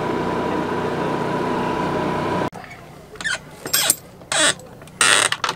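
A steady mechanical hum with many tones, like a running engine, cuts off abruptly about halfway through. It gives way to scattered small clicks and scrapes of a screwdriver being worked at a wall-mounted panel.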